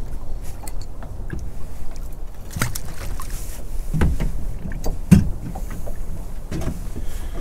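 Small open boat drifting at sea: a steady low rumble of water and wind, broken by a few sharp knocks and clicks as the rod and reel are handled. The loudest knock comes about five seconds in.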